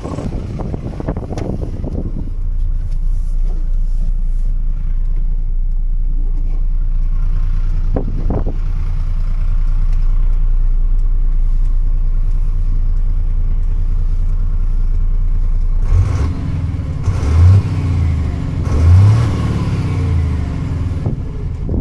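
1999 MAN 12.220 L2000 truck's diesel engine idling steadily, then revved twice in quick succession near the end, the pitch rising and falling each time. Wind buffets the microphone at the start.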